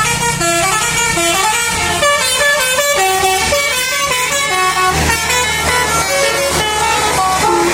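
Basuri telolet bus horn playing a quick melody of short stepped notes, several tones sounding together, over a low steady hum.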